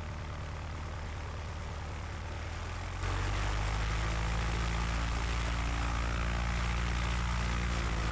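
Cessna 150's four-cylinder Continental O-200 engine and propeller running at run-up power during a magneto check, heard from inside the cabin; about three seconds in it gets louder. The check shows a 200 rpm drop, the sign of a fouled spark plug.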